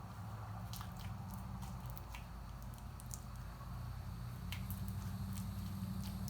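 Hands kneading and stretching freshly activated slime: irregular wet squishes and small sticky clicks and pops, over a steady low hum.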